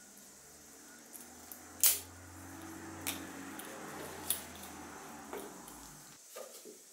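Small metal clicks and light scraping as the brass pump tube and spring of an old hand oiler are worked apart by hand. There are four clicks, the sharpest about two seconds in.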